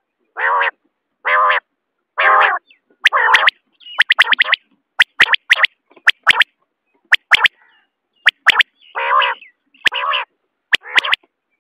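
Common quail calling: short harsh rasping calls about a third of a second each, alternating with quick clusters of sharp clicky notes, in uneven bursts separated by brief silences.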